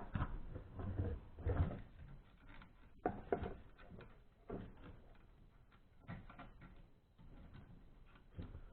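Scattered light knocks, clicks and rustles of a metal detector's plastic control box and rod being handled.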